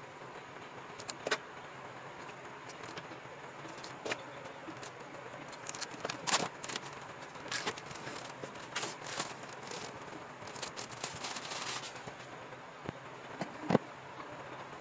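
Watercolour paper pads in clear plastic wrap being handled: scattered crinkles, rustles and light taps as they are moved and pressed on a table, with a denser run of crinkling about ten seconds in.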